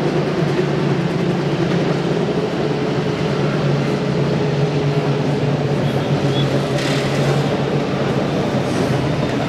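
Pit-lane noise from motorcycle endurance racing: a steady engine drone with a constant hum and a rumbling clatter, with no single event standing out.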